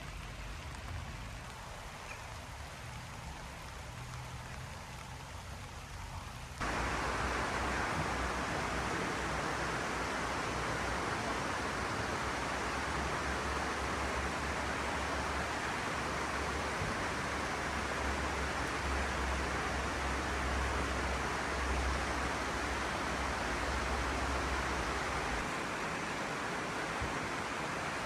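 Steady rain noise. About six and a half seconds in it cuts abruptly to a louder, fuller rushing hiss with a low rumble under it, and the rumble fades out near the end.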